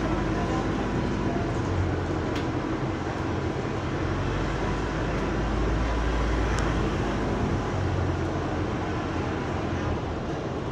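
Double-decker bus under way, heard from inside: diesel engine drone and road noise, with the electric radiator cooling fan running at one steady pitch that does not follow engine revs. The engine's low drone eases off about two-thirds of the way through while the fan's whirr stays unchanged.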